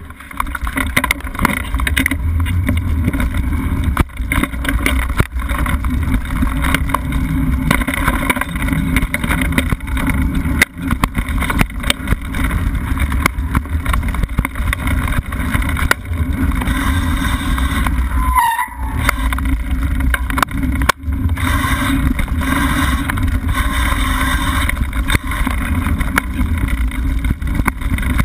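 Mountain bike riding a dirt singletrack: steady rumble of wind and tyre noise on the bike-mounted camera's microphone, with frequent rattling clicks and knocks as the bike goes over bumps. A brief high squeak about two-thirds of the way through.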